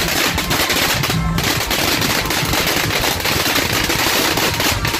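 Fireworks and firecrackers going off in a dense, unbroken string of rapid bangs and crackles, like machine-gun fire.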